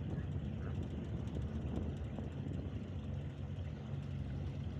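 Boat motor idling, a steady low hum.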